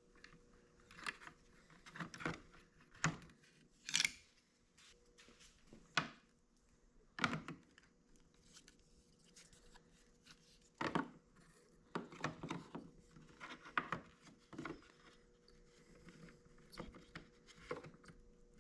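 Irregular light plastic clicks and knocks from the door mirror's turn-signal unit and mirror housing being twisted free and handled, the loudest about four and seven seconds in.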